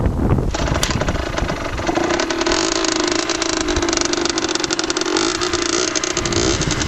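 Derbi Senda 50cc two-stroke single running through a Yasuni R3 expansion-chamber exhaust. It is just after starting and holds a fairly steady note, which wavers with small changes of throttle near the end.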